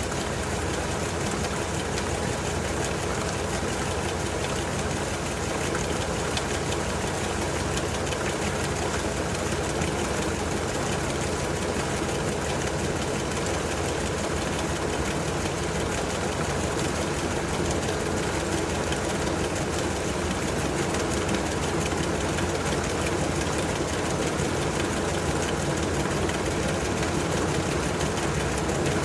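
LG TurboDrum WT-R852 top-loading washing machine running with a full load of bedding: a steady motor-and-drum hum that gets gradually a little louder.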